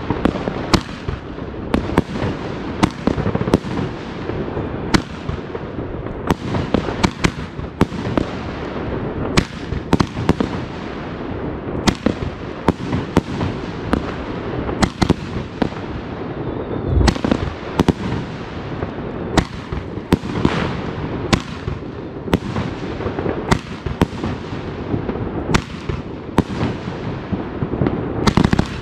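Many fireworks and firecrackers going off at once: sharp bangs about one or two a second over a steady crackling rumble of more distant explosions, with one deeper boom a little past halfway.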